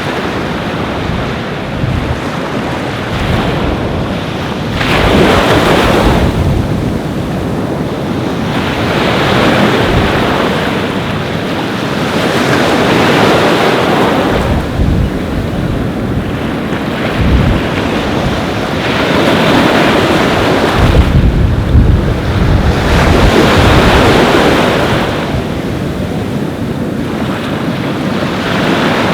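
Ocean surf breaking and washing onto a beach, swelling and easing every few seconds, with wind rumbling on the microphone.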